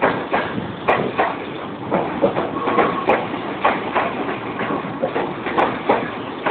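Ex-Japanese electric commuter train running past close below, a steady rumble with repeated irregular clacks.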